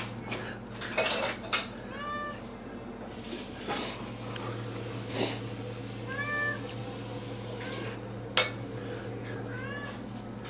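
A cat meowing three times, short meows that rise and fall in pitch, among sharp clinks of cups and dishes over a steady low hum.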